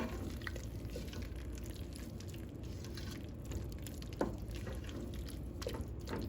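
A spoon stirring thick potato and tomato curry in a pan: soft wet squelching with a few light clinks of the spoon against the pan, the clearest about four seconds in.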